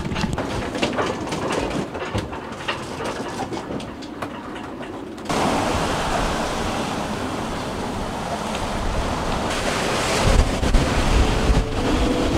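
Inside a sailboat's cabin in a gale, irregular small knocks and clicks. About five seconds in, it cuts abruptly to the open deck: a steady rush of 30-knot wind and waves, with wind buffeting the microphone and growing louder near the end.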